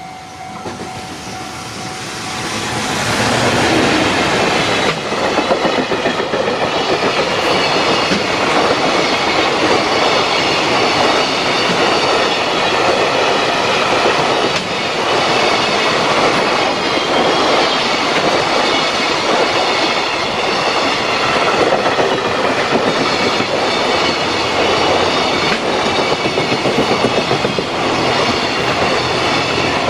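Freight train passing close by: a loud, steady rumble of wagons clattering over the rails, rising over the first few seconds as the train arrives.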